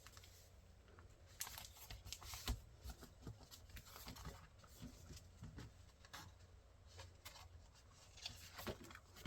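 Faint paper rustling and scattered light taps and clicks from a desk calendar being handled.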